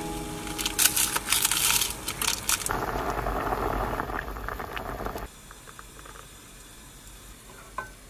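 Dumplings frying in an oiled frying pan: crackling and popping at first, then a steady sizzling hiss that drops to a quieter background about five seconds in.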